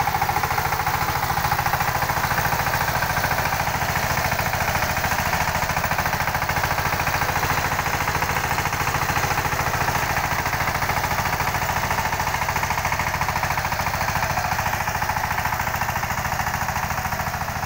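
Rhino tractor engine running steadily with a rapid, even chugging as the tractor works, puddling a paddy field.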